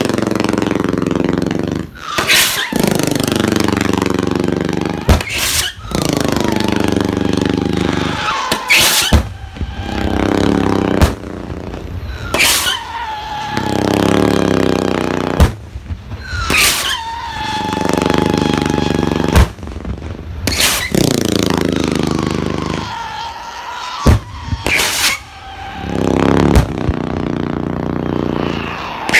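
Strobe firework rockets launching in quick succession, a new one every two to three seconds. Each starts with a sharp crack, followed by a loud rushing hiss that falls in pitch as the rocket climbs away.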